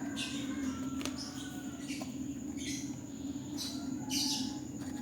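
Metal spoon stirring lime juice and honey in a glass: short scraping strokes about once a second, with an occasional clink of the spoon against the glass.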